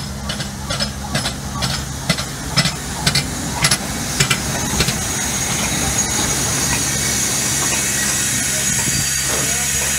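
LMS Black Five steam locomotive coasting slowly to a stand: a run of clicks and clanks from its wheels and motion over the first half, giving way about halfway through to a steady hiss of steam as it comes to rest, over a low steady hum.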